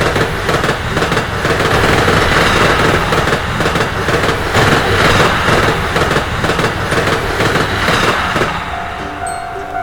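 Loud train-passing sound effect: a dense rumbling rush with rapid crackling clatter. It eases near the end as bell-like mallet chimes come in.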